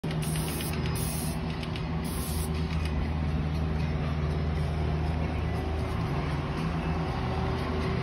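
An engine running steadily with a low hum, with three short high hisses in the first couple of seconds.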